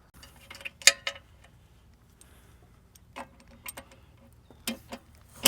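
Sharp clicks and light rattles of a laser-grading receiver and its cord connector being handled and snapped onto a mounting pole: about half a dozen separate clicks, the loudest about a second in and at the very end.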